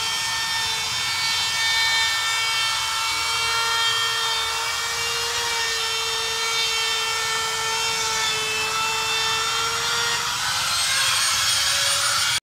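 Electric router running at high speed, its bit milling a groove into aluminium composite (ALU) panel: a steady high motor whine over cutting noise, the whine dipping and shifting near the end.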